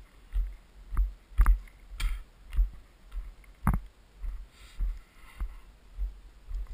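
A hiker's footsteps, each stride jolting the worn camera into a dull thump a little under twice a second, with sharp clicks on some steps, the sharpest just before the middle.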